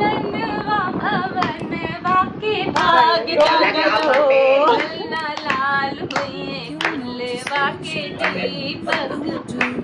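Women singing a song together, with hand clapping along.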